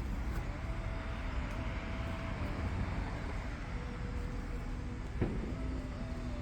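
Steady low rumble of a running motor, with faint wavering tones over it and a single sharp click about five seconds in.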